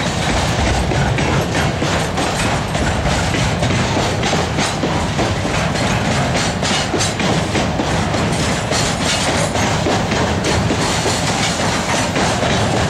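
Freight train of container flat wagons rolling past, with a steady rumble and wheels clicking over the rail joints in an uneven run of clacks.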